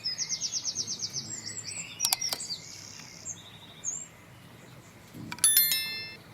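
Small birds chirping, with a rapid high trill at the start and scattered short calls after it. A click about two seconds in, and a short bright metallic ring about five and a half seconds in.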